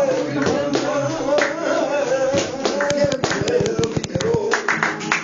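A voice singing a drawn-out, wavering flamenco-style line over rhythmic handclapping (palmas), with a fast run of claps near the middle.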